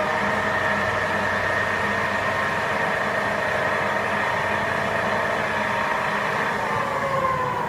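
Chevalier FCL 24x80 CNC flat-bed lathe with its spindle running in a turning cycle, a steady whine from the spindle drive. Near the end the whine falls in pitch as the spindle slows.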